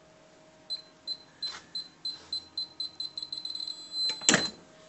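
Heat press timer beeping at the end of its pressing cycle: short high beeps that come faster and faster, running into a longer beep. A loud clunk follows about four seconds in.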